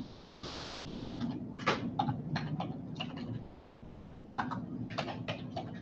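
Keys being pressed: two quick runs of sharp clicks, the second after a short pause, as a calculation is typed in. A brief hiss comes just before the first run.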